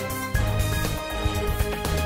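News programme intro theme music: held notes over a heavy low beat, with a new hit about a third of a second in.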